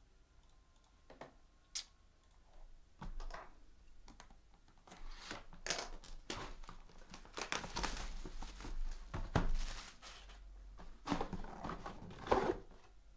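Sealed trading-card packaging being torn open and crinkled by hand, with scattered clicks and light knocks of handling, busier and louder in the second half.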